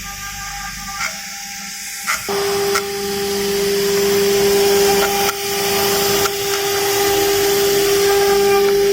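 CNC router spindle running with a steady high whine over a hiss of cutting noise. The cutting grows louder a little over two seconds in, with a few short clicks.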